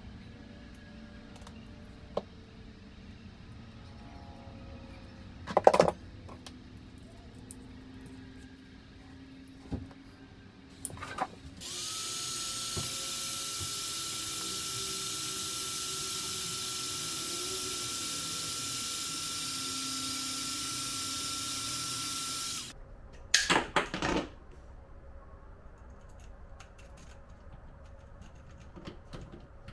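Handheld electric heat gun running for about eleven seconds, a steady rushing hiss with one fixed whine from its fan, while it shrinks heat-shrink tubing on a wire connector, then switched off. Sharp clatters about six seconds in and a burst of knocks right after it stops.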